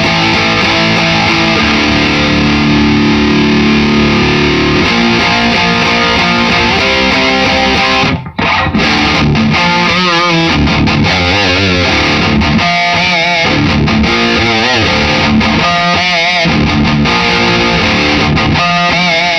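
Electric guitar, an Epiphone Les Paul Custom with active pickups, played with heavy distortion through an amp head and speaker cabinet wired with proper speaker cables. It holds ringing chords at first, stops briefly about eight seconds in, then plays lead lines with bent notes and vibrato.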